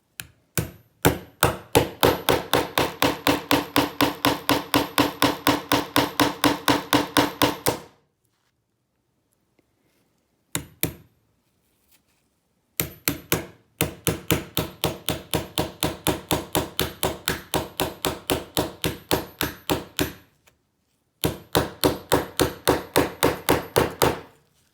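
Rapid, even hammer taps on the plastic body of a lockout-tagout padlock being broken open, about five a second, in three long runs with short pauses between them.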